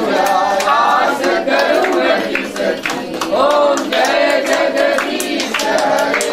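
Group of women singing a folk song together, with handclaps keeping time.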